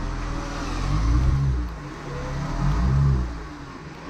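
Jeep engine revved twice, its pitch rising and falling each time, as it strains to climb.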